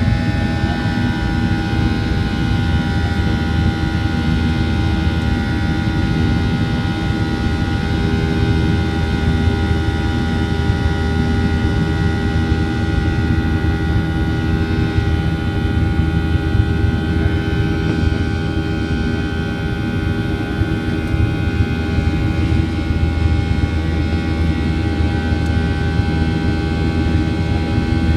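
Cabin noise of a Boeing 737-800 in its climb after takeoff, heard from a seat over the wing: the CFM56-7B turbofan engines give a steady deep rumble with several high, steady whining tones over it.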